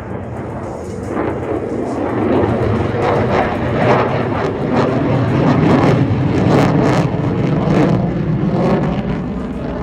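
The F-35B's Pratt & Whitney F135 jet engine running loud at high power, swelling from about three seconds in and staying at its loudest through the middle, with a ragged crackle in the exhaust noise.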